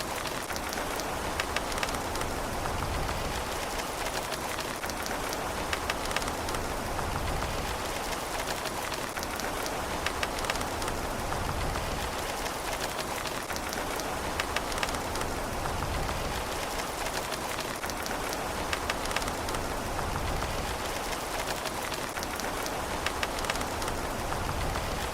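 Steady rain falling on a surface, a dense even hiss with scattered individual drops ticking through it and a low rumble swelling and fading every few seconds.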